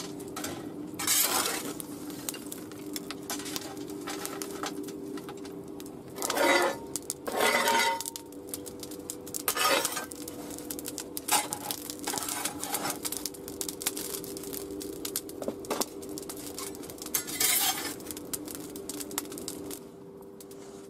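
Lumps of burning charcoal clinking and rattling as they are shovelled and raked with a metal tool out of a metal charcoal holder onto a masonry hearth, with several louder scraping rattles spread through.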